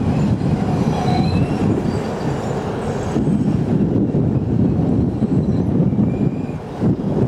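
Shunting diesel locomotive and railway wagons moving on the track, a steady heavy rumble, with brief faint high wheel squeals about a second in and again near the end.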